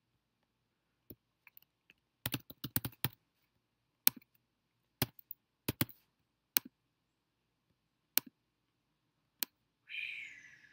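Computer keyboard typing in a quick short burst, followed by single key or mouse clicks about a second apart. Near the end there is a brief hiss.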